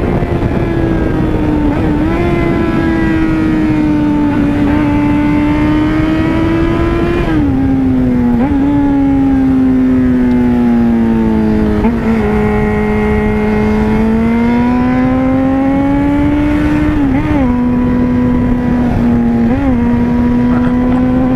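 Yamaha FZ6N's inline-four engine pulling hard at high revs, heard from the rider's seat over steady wind rush. Its note slowly sinks and climbs again with throttle, with several quick dips and catches as the throttle is eased and reopened through the bends.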